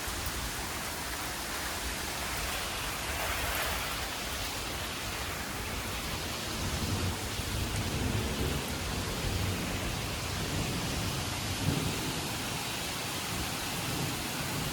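Heavy rain falling steadily, with low rumbles of thunder from about six seconds in.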